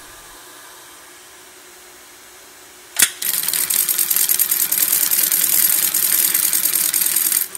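Mitsubishi programmable industrial bar tack sewing machine sewing a bar tack through eight layers of heavy canvas. After a faint hum, a sharp clack about three seconds in is followed by rapid, even stitching for about four seconds that stops abruptly near the end.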